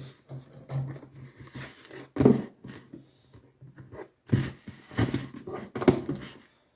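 Parcel packaging being rustled and torn open by hand, in irregular noisy bursts with quieter handling between them.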